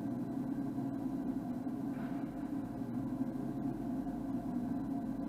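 SKIQ 16 CNC vertical lathe with its faceplate table spinning empty: the table drive runs with a steady hum of several pitches.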